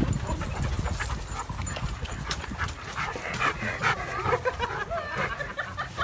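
Several excited dogs panting, with short high whines and yips from about three seconds in, over scattered clicks and a low rumble.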